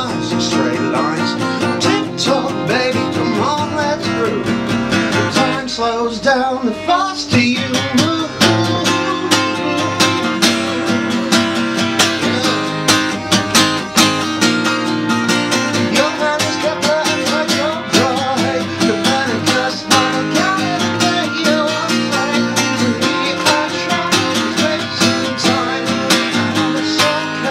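Live acoustic folk band: a steel-string acoustic guitar strummed, with a violin bowed alongside and a man singing.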